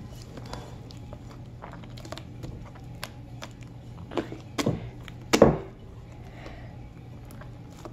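Thick slime being squished and kneaded by hand in a glass bowl, giving scattered sticky pops and squelches, loudest in a cluster about four to five and a half seconds in. A faint low hum runs underneath.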